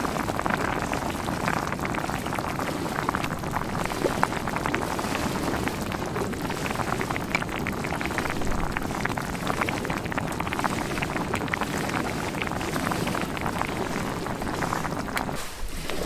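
Acqua pazza broth with clams bubbling at a simmer in an iron pan: a steady hiss of fine popping and sizzling that stops just before the end.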